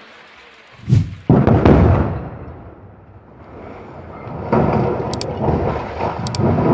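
Explosive demolition charges going off: two sharp blasts a fraction of a second apart about a second in, followed by a deep rumble that fades over a couple of seconds. A second loud rumble rises about four and a half seconds in.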